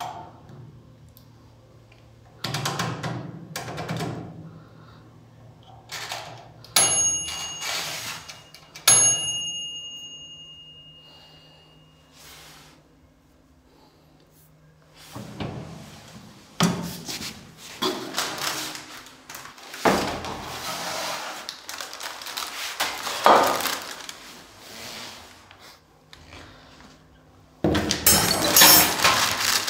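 Handling noises from a countertop oven and its accessories. Knocks and thunks, then two metal clinks a couple of seconds apart that ring on briefly. From about halfway there is rustling and crinkling of plastic wrapping, loudest near the end.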